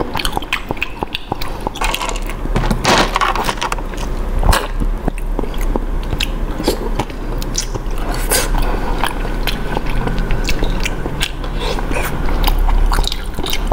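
Close-up chewing and biting of a soft sticky-rice cake with a cheese filling, heard as many small, irregular mouth clicks.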